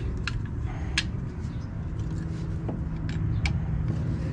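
A few light metal clicks and taps from drum-brake shoes and their springs being handled, over a steady low rumble.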